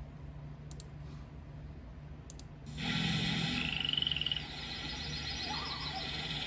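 Faint tape hiss and hum, then about three seconds in a marsh sound effect fades up: frogs croaking and chirping in a rapid repeating pattern, with a short rising whistle.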